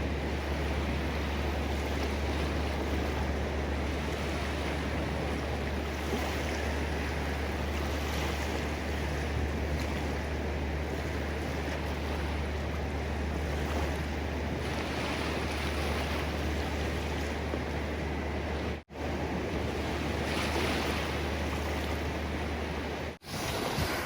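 Ocean surf washing steadily, with waves swelling and easing, over a constant low rumble of wind on the microphone. The sound cuts out for an instant twice near the end.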